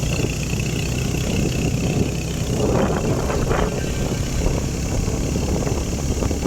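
A vehicle engine running steadily, with wind noise on the microphone.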